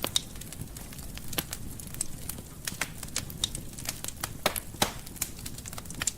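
Wood fire crackling in a fireplace: irregular sharp pops and snaps, several a second, over a low steady rumble of the flames.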